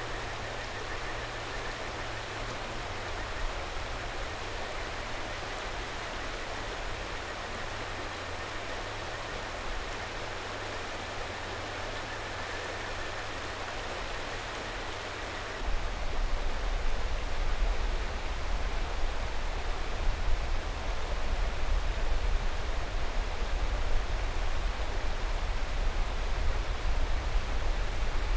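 Mountain river rushing steadily, with faint high kajika frog (Buergeria buergeri) calls in the first half. About halfway through a deep low rumble comes in and the whole sound gets louder.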